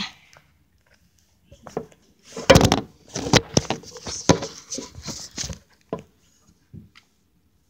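Handling noise close to the microphone: a run of knocks, scrapes and clatters lasting about three seconds, as the recording device is moved about over a glass plate on a table, with a few lighter knocks before and after.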